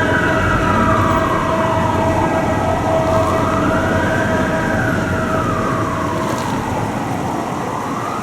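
Fire department vehicle's siren on a slow wail, its pitch rising and falling smoothly about every four to four and a half seconds, with a steady tone held underneath and a low rumble of engine and traffic.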